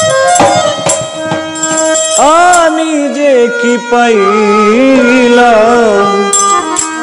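Harmonium playing a melody in stepped notes, with a few sharp taps, for about two seconds. Then a man's voice sings a long, wavering, melismatic phrase of a Bengali Baul song over the harmonium's sustained notes.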